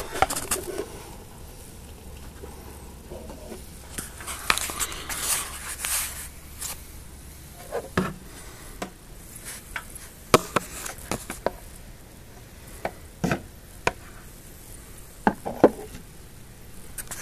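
Handling noise from a camera moved around a glass tank: a few seconds of rubbing scrapes, then scattered single taps and knocks every couple of seconds.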